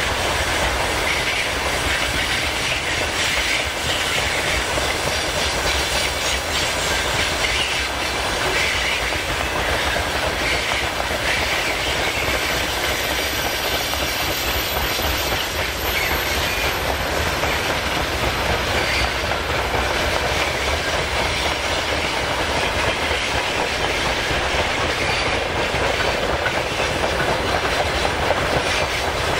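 A long freight train of open gondola wagons rolling past, with a steady rumble of wheels on rail and a clickety-clack over the rail joints.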